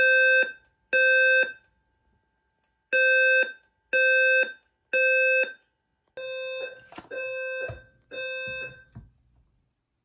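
Notifier NFS2-3030 voice-evacuation speaker sounding the temporal-three evacuation tone between voice messages. It gives even, low-pitched beeps in groups of three with a pause between groups; the last group of three, about six seconds in, is quieter, and the tone stops about nine seconds in.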